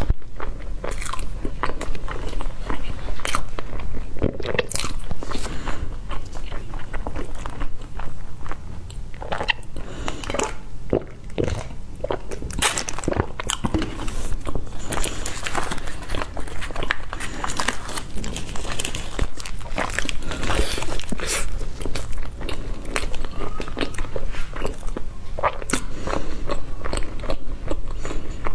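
Close-miked chewing and biting of a soft baked cake, with wet mouth clicks and small crunches throughout.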